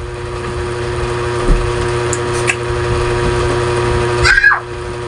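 A small engine running steadily, its hum growing louder over the first few seconds, with a short squawk about four seconds in.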